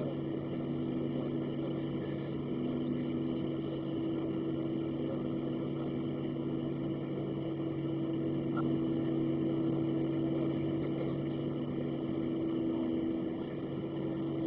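Boeing 737-700's CFM56 jet engines running at idle thrust, heard inside the passenger cabin as a steady drone with several low hum tones, getting slightly louder about eight seconds in.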